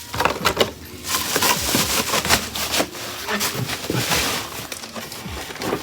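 Unpacking handling noise: plastic packaging rustling, with scattered sharp clicks and knocks.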